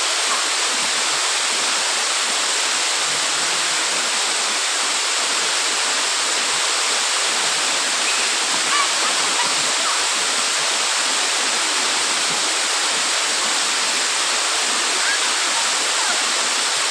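Waterfall pouring, a steady, unbroken rush of falling water.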